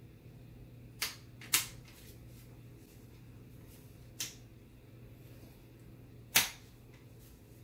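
Hard clicks and snaps as a Hi-Point 995TS carbine's parts are pressed and locked into a High Tower Armory MBS-95 bullpup stock. There are four sharp clicks: about a second in, half a second later, a smaller one past four seconds, and the loudest past six seconds.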